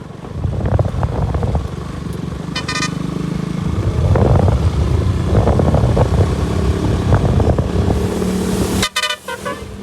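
KTM RC 200 motorcycle engine running while riding, under a steady low rumble. A vehicle horn toots once briefly about two and a half seconds in, then gives a few quick toots near the end.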